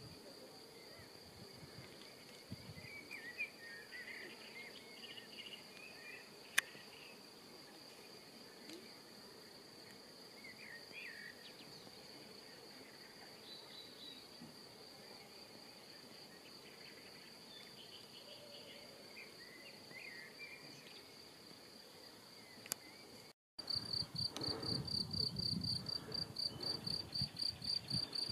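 Steady high-pitched insect stridulation, crickets or bush-crickets, with scattered short bird chirps. Near the end, after a brief cut, the insect trill is louder and pulses quickly, over a low rumbling noise.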